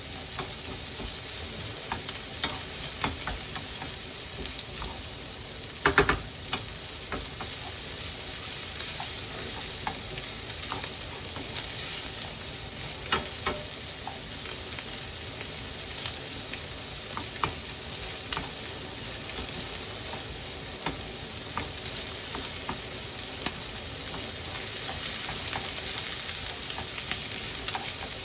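Egg and Spam fried rice sizzling in a frying pan while a spatula stirs and scrapes through it, with scattered clicks and one louder knock about six seconds in.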